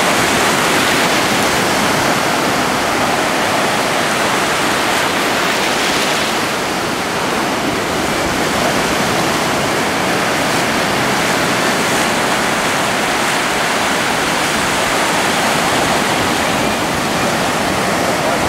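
Ocean surf breaking and washing through the shallows, a steady loud rush of water noise that eases slightly about six seconds in.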